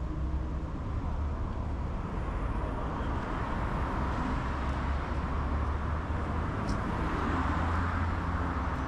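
Road traffic: cars passing on a busy multi-lane city street, a continuous rumble of engines and tyres that swells and is loudest near the end.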